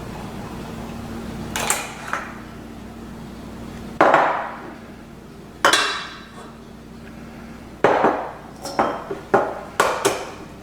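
Eggs being cracked on the rim of a bowl and shells knocking against the bowl while separating yolks from whites: a series of sharp knocks with short ringing, several coming in quick succession near the end.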